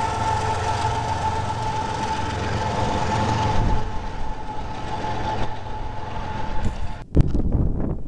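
Union Pacific diesel locomotive passing close by: a steady low rumble with a steady high whine over it, which fades after about five seconds. The sound breaks off sharply about seven seconds in, giving way to quieter outdoor noise.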